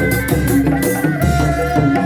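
Traditional Sundanese kuda lumping (reak) music: drums beat a steady rhythm under a sustained high melody line.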